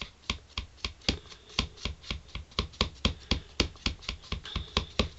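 Rubber stamp tapped over and over on an ink pad to ink it, quick sharp taps at about five a second.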